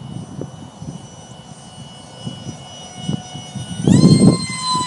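Whine of a 50mm electric ducted fan driven by a 6000kv motor on a small RC F-35 jet in flight. The whistle jumps sharply up in pitch and gets louder near the end, then slowly sags, over a low rumble of wind on the microphone.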